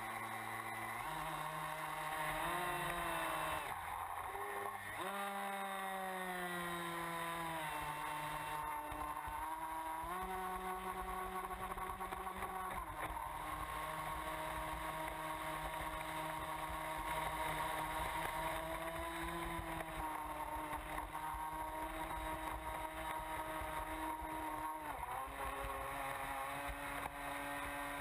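Onboard sound of a Miss Geico RC catamaran running on the water: its electric motor whines, stepping and gliding up and down in pitch several times as the throttle changes, over a steady rush of water and spray.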